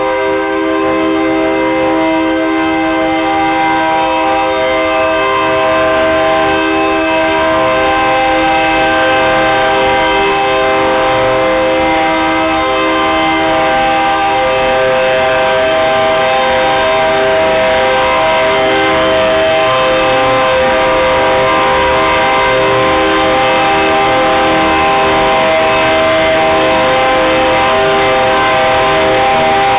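Air horn of a KCSM GP38-2 diesel locomotive sounding one long, unbroken blast, several notes at once in a chord.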